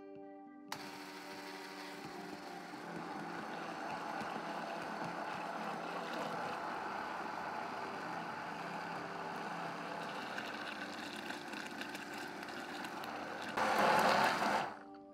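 Immersion blender running submerged in a liquid strawberry-banana puree with cream, blending it to a froth. The motor starts suddenly about a second in, runs steadily, gets louder for about a second near the end, then cuts off.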